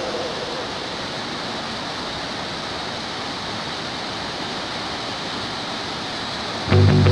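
Steady rushing of a rocky river's flowing water. Loud background music cuts in near the end.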